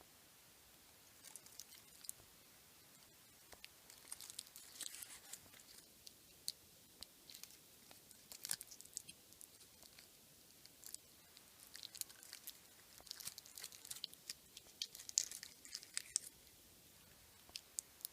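Watch packaging being handled and opened by hand: faint, irregular crinkling and rustling with small clicks and taps.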